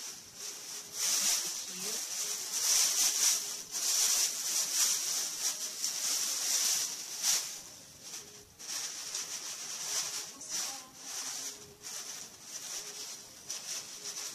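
Plastic bags and paper packaging rustling and crinkling as items are dug out and unwrapped, louder and busier through the first half, then lighter.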